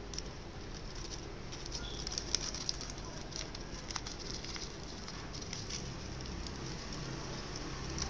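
Thin origami paper crinkling and rustling under the fingers as it is folded and creased: a run of small, irregular crackles, densest about two to three seconds in, over a steady low hum.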